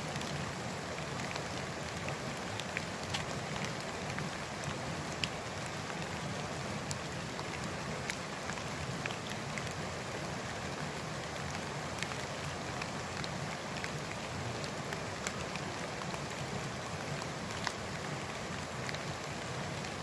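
Light rain falling: a steady hiss with many small scattered ticks of drops.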